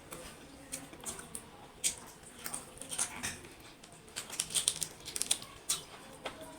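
Close-miked eating sounds: irregular wet clicks and smacks of chewing, growing busier past the middle.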